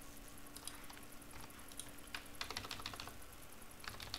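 Faint clicking of computer keyboard keys, scattered single clicks with a quick run of several about two and a half seconds in and more near the end, over a faint steady hum.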